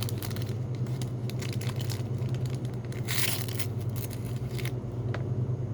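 Crinkly plastic wrapping of a Mini Brands capsule being torn and peeled open: a run of crackling clicks with one louder rip about three seconds in, over a steady low hum.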